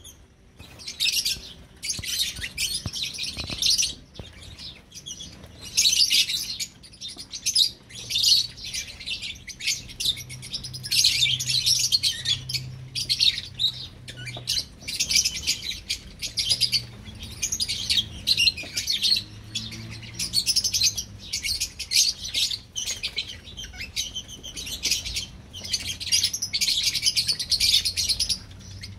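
A flock of young lovebirds chattering: high, shrill chirps in dense bursts, one after another about every second, with hardly a pause.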